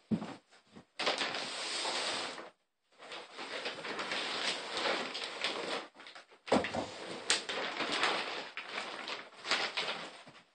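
Plastic shopping bag rustling and crinkling as a cardboard box is pulled out of it, in three spells of a few seconds each with sharp crackles.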